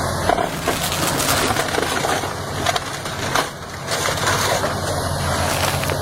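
Heavy demolition machine crushing and breaking up material: a dense jumble of irregular cracking and splintering over a steady low engine drone.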